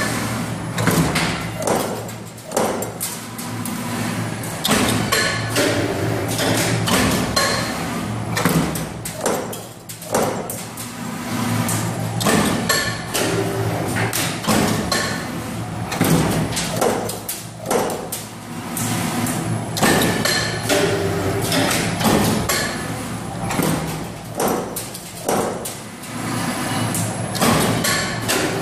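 CNC transformer lamination cut-to-length machine running: the steel strip is fed through while the punching heads and mitre swing shear stroke again and again, giving repeated sharp thumps and clacks at uneven spacing over a steady low machine hum.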